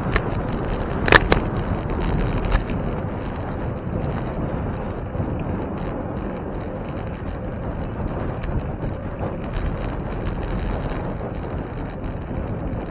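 Steady wind rushing over the microphone and tyre rumble from a moving bicycle. Sharp knocks come about a second in, with another at around two and a half seconds.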